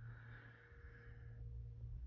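A neighbour's vacuum cleaner running in a nearby flat, heard faintly through the walls as a steady low hum. A brief higher whine rises and fades in the first second and a half.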